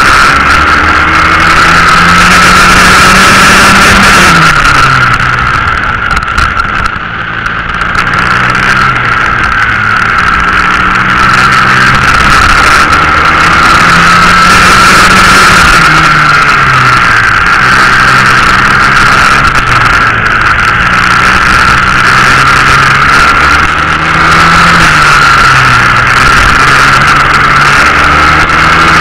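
Swissauto 250 cc four-stroke kart engine at racing revs, heard onboard. Its pitch climbs on the straights and drops under braking for corners several times, with a clear off-throttle lull about six to eight seconds in.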